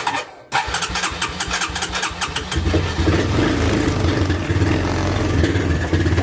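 A vehicle engine being cranked by its starter, pausing for a moment, cranking again and catching about two and a half seconds in, then running steadily at idle.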